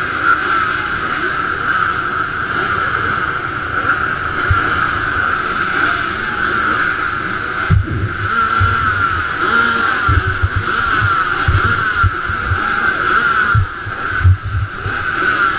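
A line of motocross bikes running and revving together at the starting gate, a dense overlapping engine din. Irregular low thumps come in from about halfway.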